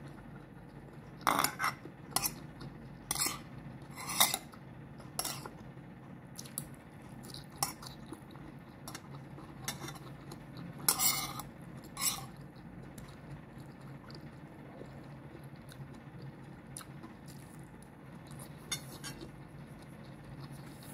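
Metal spoon clinking and scraping against a glass bowl while someone eats from it: a string of sharp separate clinks, thick through the first dozen seconds and only a few after that.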